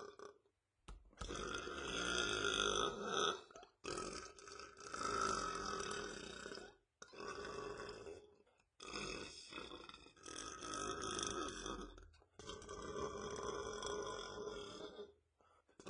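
A man belching: a string of about five long, drawn-out burps, each lasting two to three seconds, with short pauses between them.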